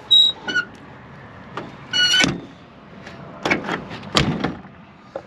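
Old 1965 Chevrolet Sport Van's metal door and cab being handled as someone climbs out: two short high squeaks, then a sharp pitched squeal about two seconds in, followed by several knocks and thuds.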